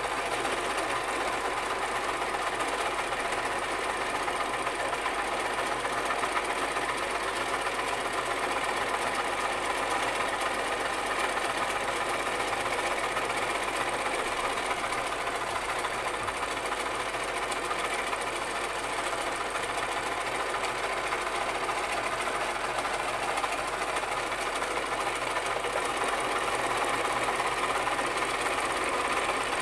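Sewing machine running steadily without a pause, the needle stitching in a fast, even rhythm.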